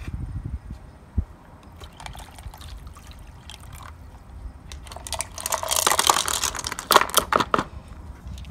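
Water splashing and pouring as tumbled CRT glass pieces are scooped out of a tub of grey slurry with a small container, with the glass pieces clinking. It starts quietly and gets loud about five seconds in, for a couple of seconds.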